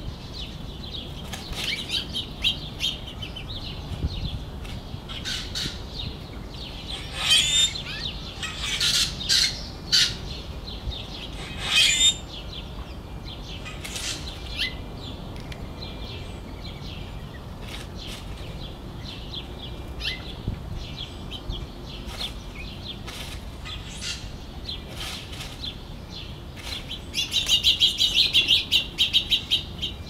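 Small songbirds, house finches and sparrows, chirping: scattered short chirps, a louder cluster of calls from about seven to twelve seconds in, and a rapid run of chirps near the end. A steady low rumble runs underneath.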